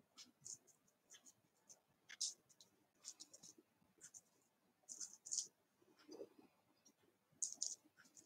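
Faint, irregular scrapes and light clicks of a metal spoon spreading grated chocolate over the cream topping of a cake, coming in short clusters every second or so.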